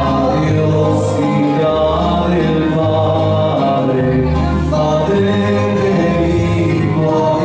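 A man and a boy singing together into microphones over amplified music, with a bass line that changes note about once a second.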